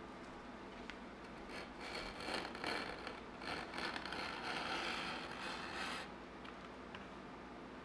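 Utility knife blade drawn along a metal straight edge, slicing through leather to cut a strip: a scraping rasp in several strokes lasting about four seconds that stops abruptly.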